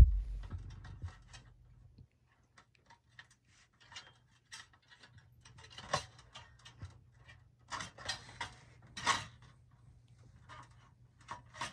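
Scattered clicks and rattles of a DVD player's plastic and metal parts being handled and pulled during disassembly, with a short burst of them about eight to nine seconds in, over a faint steady low hum.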